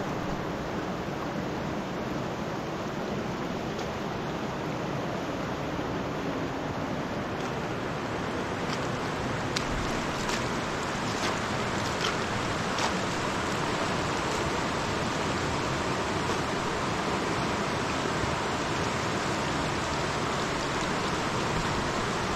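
Steady rushing of a big, fast-flowing river, with a few faint clicks about halfway through.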